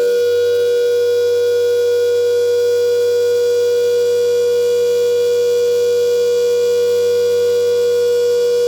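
Air raid siren sounding one loud, steady tone at full pitch, with no rise or fall.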